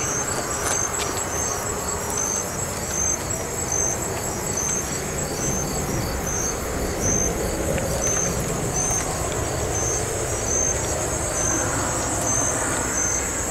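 Night insects chirping: a regular high chirp about twice a second over a continuous high trill. Beneath them is a steady low rumble of distant road traffic.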